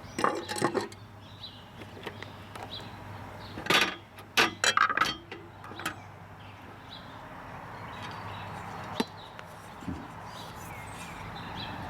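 A 1967 Consul 233 manual typewriter being handled and turned around on a surface: a few knocks and clatters near the start and a cluster about four seconds in, then two single clicks near the end.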